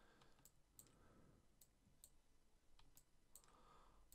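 Near silence with about six faint, irregular computer mouse clicks, made while polygons are selected in a 3D modelling program.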